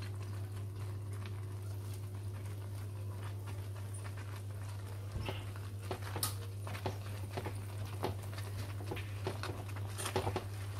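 A metal spatula scraping and clinking in a steel kadhai, stirring grated dry coconut into thick, bubbling sugar syrup. The scrapes and clicks start about five seconds in, over a steady low hum.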